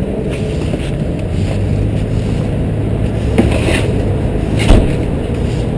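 Steady rumble of road traffic and an idling engine, with a short knock about halfway through and a louder thump a second later.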